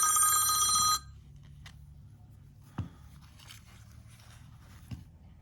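A telephone ringing loudly with a steady multi-pitched electronic ring that cuts off abruptly about a second in. After it, a faint low hum with a few small clicks from handling tools.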